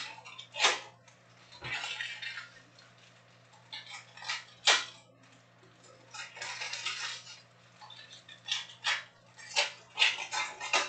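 Trading-card packs being torn open and the cards handled: sharp snaps and taps of cards, with several short stretches of foil wrapper crinkling and tearing.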